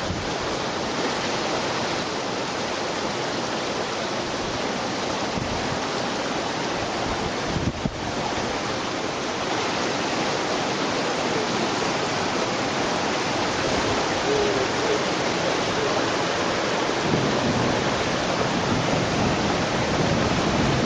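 Steady rushing of floodwater, an even dense hiss that grows a little louder in the last few seconds.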